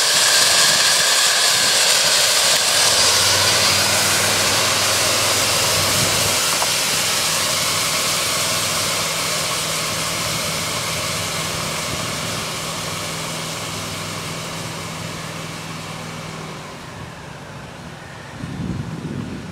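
Boiler blowdown on a 7.5-inch gauge live steam locomotive: steam and water blast from the open blowdown valve in a loud hiss. The hiss slowly dies away as the last boiler pressure, already below 40 psi, bleeds off.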